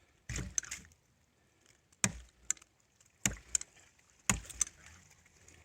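Ram pump's waste valve knocking shut four times, each sharp clack followed by a smaller rattle, coming closer together as the pump is primed and begins to cycle.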